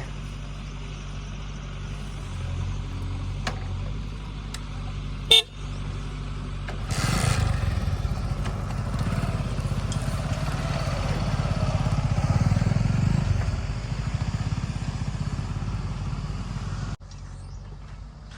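Diesel engine of earth-moving machinery running steadily, then louder and working harder from about seven seconds in, with one sharp click about five seconds in. The sound cuts off suddenly near the end.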